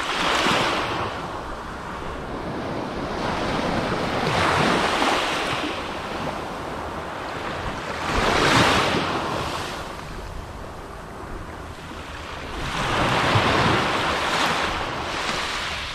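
Small waves breaking and washing up a sandy beach, the surf swelling and fading about every four seconds, with wind rumbling on the microphone.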